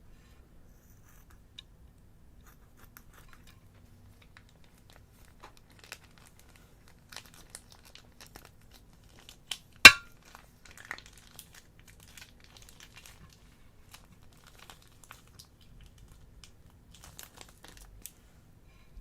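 Slime and plastic piping bags being handled, giving soft crinkling and crackling with scattered small clicks. One sharp, loud snap comes about ten seconds in.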